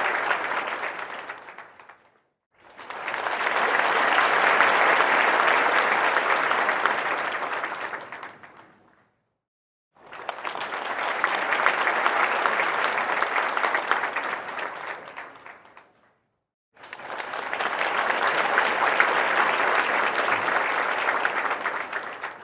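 Crowd applause in separate bursts: one fading out at the start, then three more, each rising quickly, holding, and fading away, with short silences between them.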